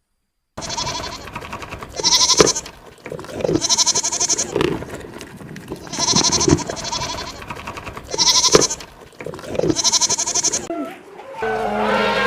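An animal calling over and over in harsh, pulsing calls, one about every two seconds, each with a high buzzy part and a lower sliding part. Steady music comes in about a second before the end.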